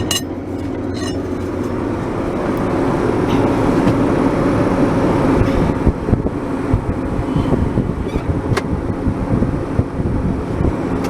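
Vehicle engine running steadily, with a few short sharp knocks over it.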